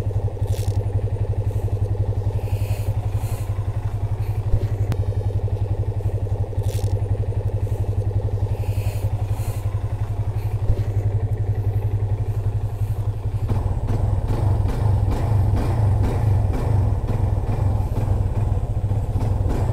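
Yamaha FZ25's single-cylinder engine idling steadily as it warms up, with a couple of light knocks along the way. About 13 seconds in, the engine note gets louder and rougher.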